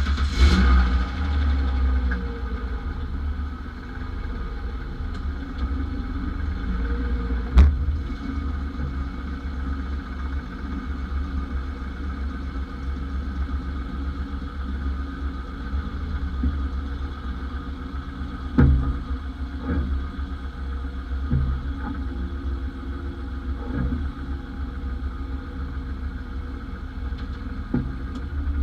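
1991 Ford Explorer's 4.0-litre V6 engine running right after being started, revving up briefly at first and then settling to a steady run. A few short sharp knocks sound over it, the loudest about 8 and 19 seconds in.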